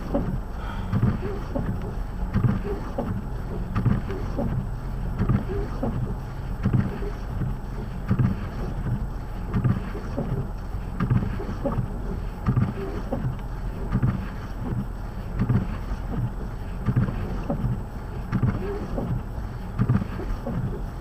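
Car driving on a snowy road: a steady low rumble with frequent irregular low thumps.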